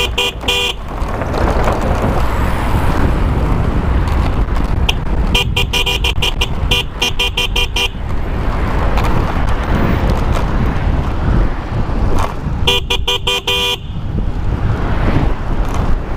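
Loud Bicycle Mini, a bicycle horn that plays a car-horn sound, honking in three bursts of short repeated toots: one right at the start, a longer run about five and a half seconds in, and another near thirteen seconds. Between the honks there is a steady rumble of wind and traffic.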